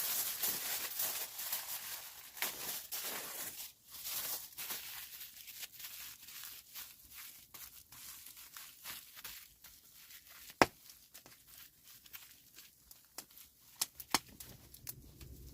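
Rustling and tearing noises that thin out into scattered sharp clicks and snaps, with one loud snap about ten and a half seconds in.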